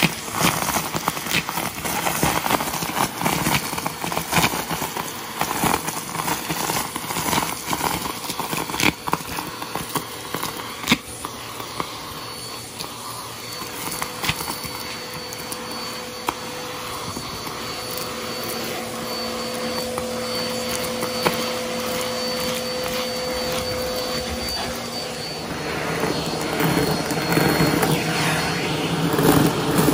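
Vacuum cleaner running as its nozzle sucks up a pile of confetti, sequins, glitter and coins from carpet, with many sharp clicks and rattles as pieces are drawn into the nozzle. A steady whine comes in partway through, and the sound grows louder and fuller near the end.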